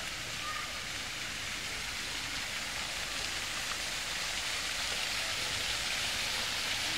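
Steady rush of running or falling water, growing gradually louder toward the end.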